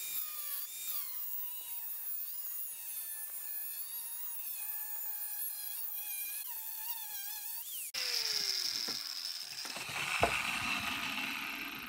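Angle grinder with an ordinary abrasive cutting disc, sprayed with WD-40, cutting through 10 mm aluminium plate: a steady high whine whose pitch wavers as the disc bites, the disc not clogging. About eight seconds in the sound changes abruptly to a falling tone, followed by a single knock.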